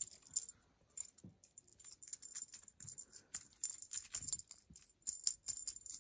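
Small bell and metal charms on a feather wand cat toy jingling and rattling in quick, irregular taps as kittens bat at it.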